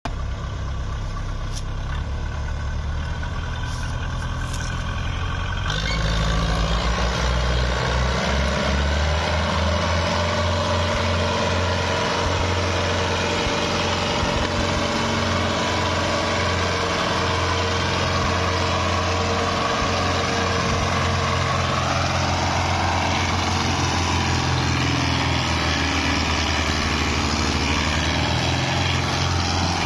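Belarus tractor's diesel engine running hard under heavy load as it pulls a sugarcane-laden trolley stuck in soft ground. The engine gets louder about six seconds in and then holds a steady, labouring note.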